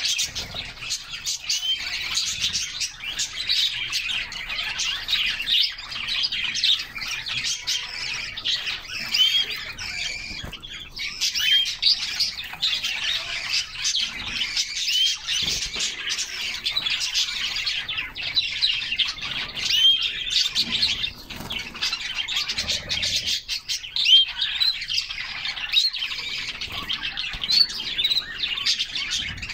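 A group of canaries chirping and singing at once: a steady, dense chatter of many overlapping high-pitched chirps, some with short upward-hooked notes.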